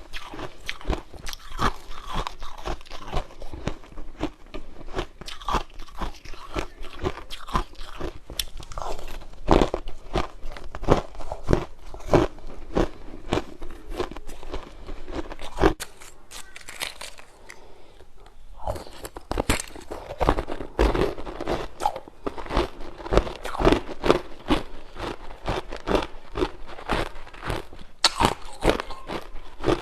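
Dense, close run of crisp crunches and clicks, with a short lull a little after halfway.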